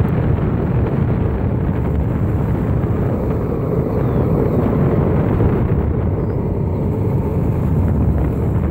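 Sector 9 longboard's wheels rolling over asphalt, a steady rumble mixed with wind noise on the microphone.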